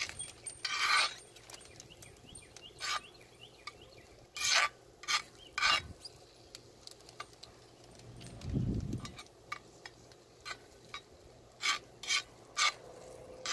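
Metal utensil scraping and tapping on a cast-iron griddle as scrambled eggs, sausage and cheese are stirred: a series of short scrapes, more of them in quick succession near the end. A brief low rumble about two-thirds through.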